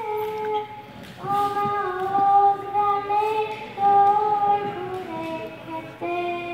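A young girl singing solo into a microphone, unaccompanied, holding long notes in a slowly falling melody.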